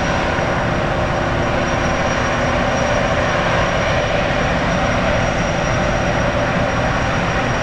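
Gas turbines of a Tokai Kisen jetfoil running steadily: a constant rushing noise with a thin high whine over it.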